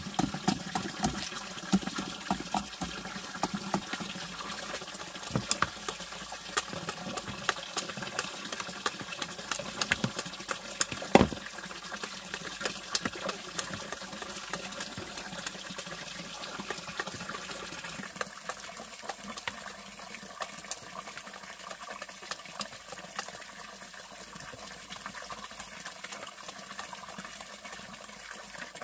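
Water running and splashing, with many scattered clicks and knocks, one louder knock about eleven seconds in; the sound gets a little quieter and thinner later on.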